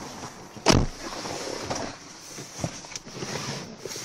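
A single heavy thump under a second in, followed by rustling handling noise and a few faint knocks as the phone is moved about.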